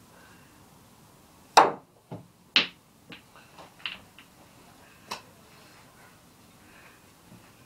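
Snooker cue and balls clicking: two sharp clacks about a second apart, then a run of fainter clicks as the balls knock together and on, the last about five seconds in.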